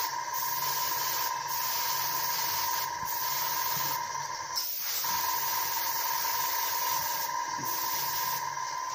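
Gravity-feed airbrush, a Harder & Steenbeck Ultra 2in1, spraying paint: a steady hiss of air with a whistling tone, cut off for a moment about halfway through, then resuming.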